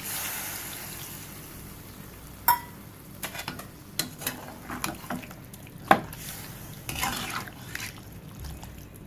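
Water added to a hot pan of chicken masala hisses and fades away, then a spoon stirs, scraping and clinking against the pan, with one louder knock about six seconds in.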